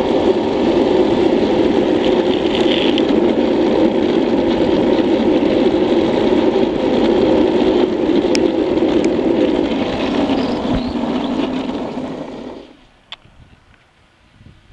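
Classic luge board's wheels rolling fast on asphalt with wind over the helmet cam, a loud steady rolling noise. It fades about eleven seconds in and cuts away about twelve and a half seconds in as the board slows to a stop.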